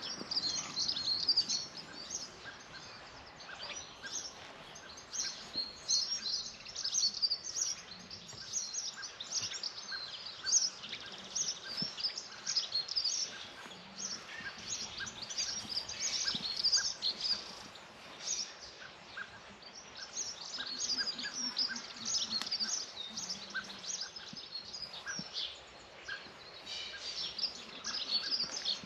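Several songbirds singing at once: a continuous mix of quick, high chirps and short trills overlapping one another, as in a spring dawn chorus.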